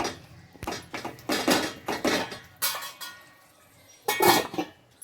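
Metal spoon scraping and knocking against a cooking pan as a thick egg and tomato curry is stirred: a run of short scrapes, then a louder clank about four seconds in.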